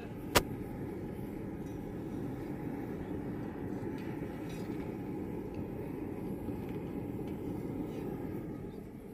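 A single sharp metallic clink, then the steady rumbling noise of a running forge that eases slightly near the end.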